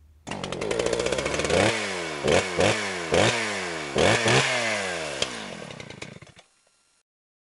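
Small gasoline engine revving in a series of sharp throttle blips, about six in all, the pitch jumping up on each and sliding back down as it falls off, before cutting off near the end.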